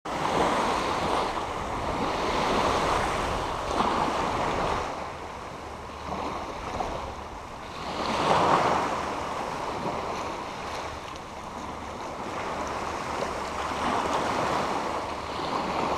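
Small waves washing in over a shallow sand-and-shingle shore and running back. The wash swells and fades every few seconds and is loudest about eight seconds in.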